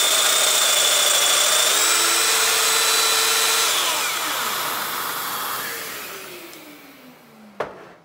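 Festool Domino XL DF 700 joiner running at full speed during a mortise cut in the end of a wooden handrail, with a Festool CT36 dust extractor drawing through its hose. About halfway through it is switched off, and the motor noise winds down, falling steadily in pitch over a few seconds. A sharp click comes near the end.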